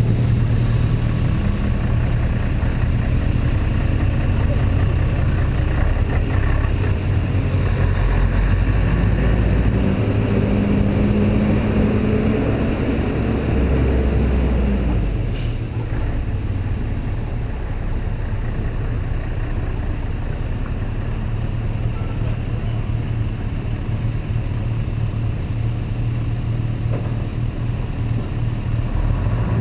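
BMW F650GS motorcycle engine running while riding a mountain road. The engine note climbs over several seconds from about a quarter of the way in, then drops off about halfway through, and the bike runs at a lower, steady level for the rest.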